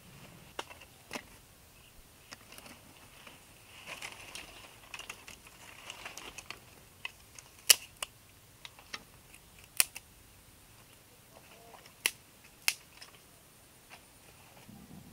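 Scattered sharp clicks and snaps of dry sticks being handled and laid into the firebox of a mud oven, the loudest pair about halfway through. A faint steady high hiss runs beneath.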